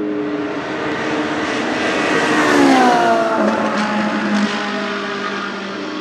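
Race car passing at speed on a wet track: its engine note glides down in pitch as it goes by, loudest about halfway through, over a hiss of tyre spray. A steady lower engine hum continues underneath.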